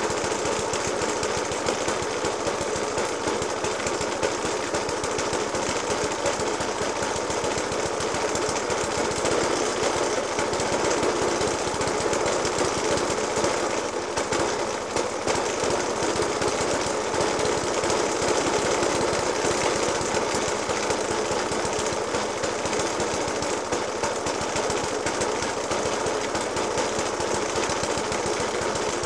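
Suffolk Punch 30S lawnmower's petrol engine idling roughly with a rapid, steady run of heavy banging. The banging persists despite a new spark plug, a decoke and a cleaned Dellorto FCH 20 carburettor.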